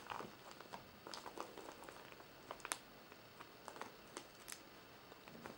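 Faint scattered clicks and rubbing of fingers handling a hard plastic toy capsule, turning it over while feeling for the seam to open it.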